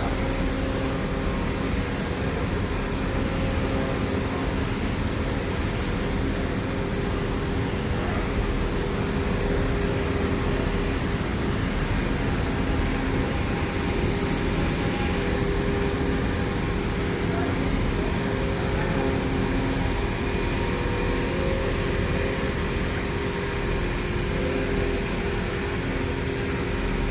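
Circular knitting machine running steadily at speed: a dense, even mechanical whirr with a few steady humming tones and no breaks or changes.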